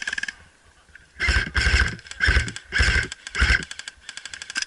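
Airsoft electric guns firing full-auto bursts as a fast buzz of shots. Four loud, short bursts close together come from about a second in, with fainter rapid strings of fire before and after.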